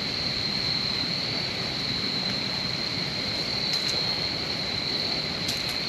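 A steady, high-pitched trilling insect chorus over a low rushing background noise, with a few faint clicks in the second half.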